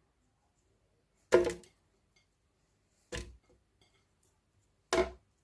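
Three separate knocks, about two seconds apart, each with a short ringing tail: pieces of chopped capsicum dropped one by one into a mixer-grinder jar.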